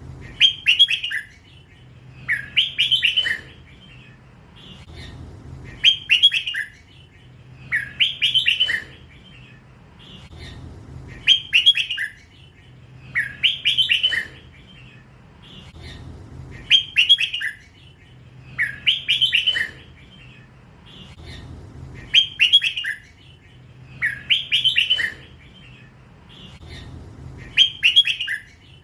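A young hybrid red-whiskered bulbul, still in its first plumage, sings its song phrase over and over in the style Thai keepers call 'lak wai'. Each short phrase of several quick notes comes about every two and a half seconds.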